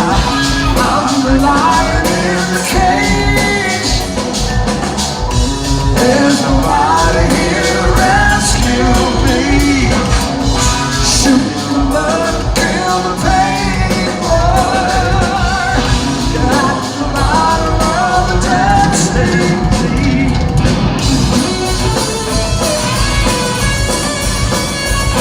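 Loud live rock band playing a song: drum kit, bass and electric guitar with singing.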